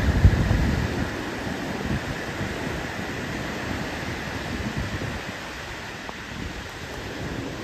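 Ocean surf, small waves breaking and washing up the shore, with wind rumbling on the microphone, heaviest in the first second.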